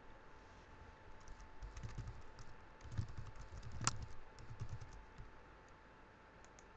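Typing on a computer keyboard: a quick run of key clicks lasting about four seconds, with one louder keystroke near the middle, over a faint steady hum.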